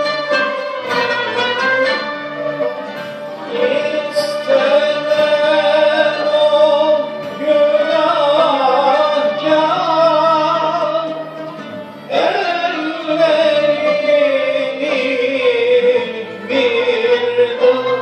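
Turkish classical music ensemble performing a song in makam Hicaz, usul Düyek: singing over plucked and bowed strings. The music dips briefly about twelve seconds in before the next phrase begins.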